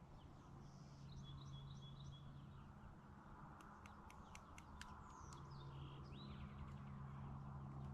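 Quiet woodland ambience: birds chirping now and then, a quick run of about half a dozen sharp clicks near the middle, and a faint steady low hum underneath.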